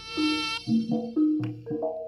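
Javanese jaranan music: a reedy, nasal wind melody over struck gamelan notes playing in short separate tones.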